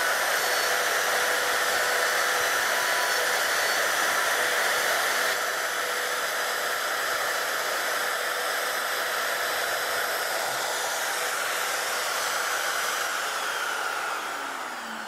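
Trim router in a Tianli mortising jig running at speed while cutting a mortise, a steady high whine with a rush of air. Near the end it is switched off and its pitch falls as it winds down.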